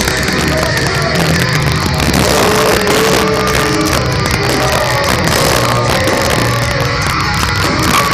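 Heavy metal band playing live at full volume: distorted electric guitars, bass and drums, with held melodic guitar lines over the top.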